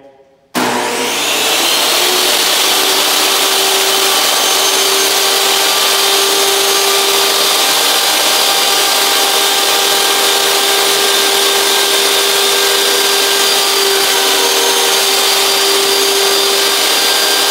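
Jobsite table saw switched on about half a second in: its motor whines up to speed within a second, then runs loud and steady.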